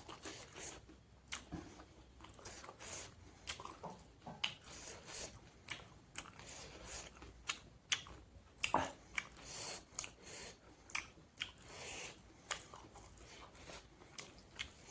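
A person chewing and biting food close to the microphone: irregular wet mouth clicks and smacks with occasional crunches.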